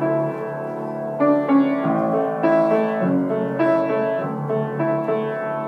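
Slow piano accompaniment playing on its own between sung lines of a gentle song, with chords and single notes struck about every half second to a second.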